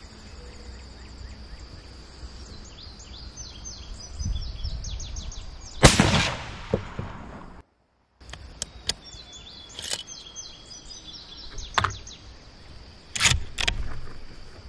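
.243 Winchester Savage Axis bolt-action rifle firing a single handloaded round about six seconds in: one sharp, very loud report with a brief echo. A few much lighter clacks follow as the rifle is handled and the bolt worked.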